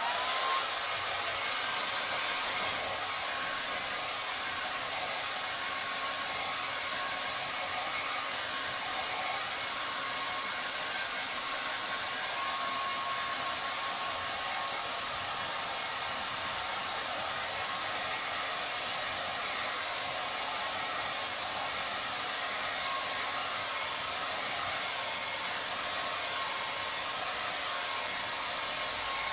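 Handheld hair dryer switched on and blowing steadily. A faint motor whine rises briefly at the start as it comes up to speed, then holds steady under the rush of air.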